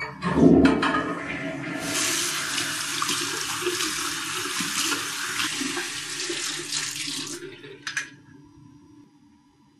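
A toilet flushed by its tank lever: a click and a loud low rush of water. A bathroom sink tap then runs steadily over washing hands and is shut off about seven seconds in, followed by a short sharp sound.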